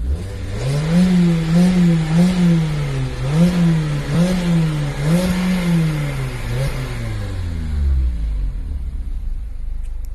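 Mazda MX-5 ND2's 2.0-litre inline-four exhaust as the engine is revved in place. It climbs quickly, bounces several times against the stationary rev limiter, then drops back to idle about eight seconds in.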